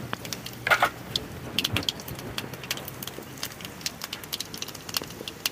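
Mustard seeds and dals crackling in hot oil in an aluminium kadai: irregular sharp pops over a faint sizzle, the seeds spluttering as the tempering begins.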